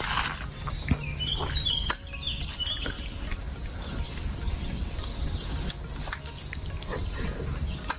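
Insects buzzing steadily at a high pitch, with a few short bird chirps in the first three seconds over a low rumble and occasional clicks.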